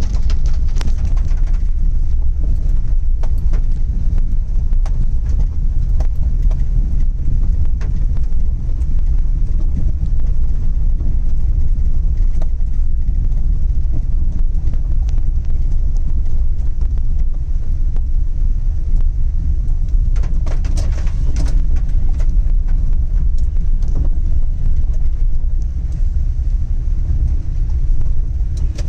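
Car cabin while driving slowly in rain: a steady low rumble of the car moving, with scattered light taps of raindrops on the glass and body.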